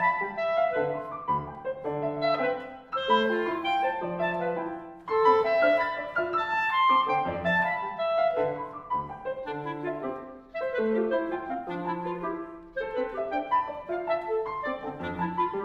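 Clarinet and piano duo playing contemporary classical music: busy phrases of quick notes, broken by short breaks.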